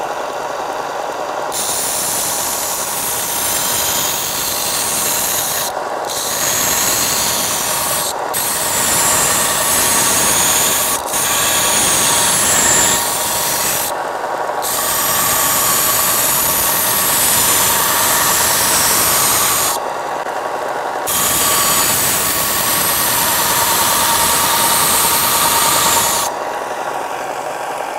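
Eastwood 4" x 36" belt sander running with its belt raised upright, while the edge of a metal piece is ground on the 80-grit belt: a harsh, steady rasp over the motor's hum. The rasp stops briefly about five times as the piece is lifted off, and ends shortly before the end, leaving the motor running alone.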